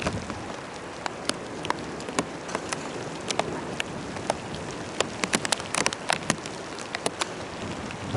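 Rain falling steadily, with many sharp, irregular taps of single drops striking a hard surface.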